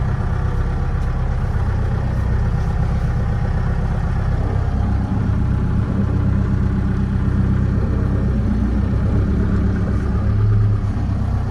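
Mahindra Roxor's 2.5-litre four-cylinder turbo-diesel engine running steadily as the UTV is driven off on a cold engine that has not been warmed up. The low engine note swells briefly near the end.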